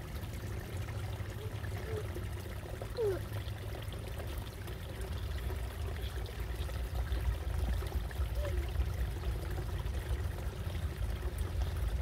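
Small shallow woodland stream trickling steadily over stones and leaf litter.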